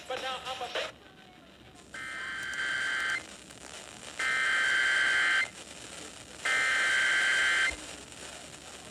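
Emergency Alert System SAME header: three bursts of buzzing digital data tones, each about a second long with a pause between them. This is the coded header that opens an EAS alert.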